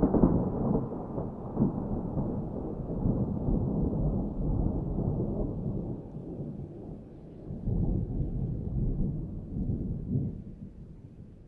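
Thunder rumbling after a strike, rolling on in low swells that rise again about eight seconds in, then dying away near the end.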